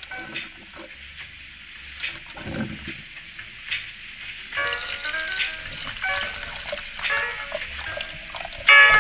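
Background music. It breaks off to a steady hiss at the start, and a melody comes back in about four and a half seconds in.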